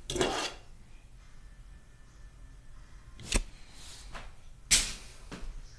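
Short rustle, then a few sharp clicks and clacks of a die-cast toy car being picked up and handled, the loudest clack near the end.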